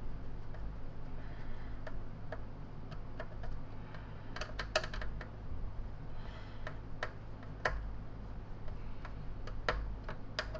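Irregular light clicks and taps of small plastic and metal parts being handled: a wire connector and screws being fitted into a vacuum cleaner's plastic motor housing. A low steady hum runs underneath.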